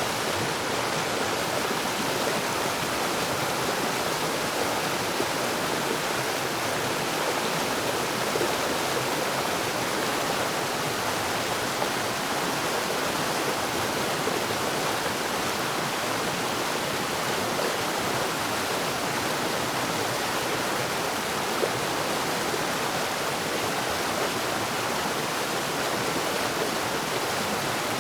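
River rapids: fast water rushing and splashing over rocks in a steady, unbroken rush.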